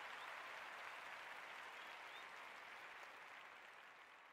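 Near silence: a faint, even hiss that slowly fades out.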